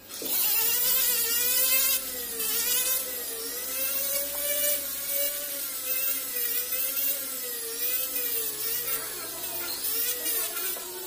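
Jeweller's rotary tool spinning a blue polishing bit against a silver ring: a high whine that wavers up and down in pitch as the bit bears on the metal, with a scratchy hiss, then begins to slow and fall in pitch near the end.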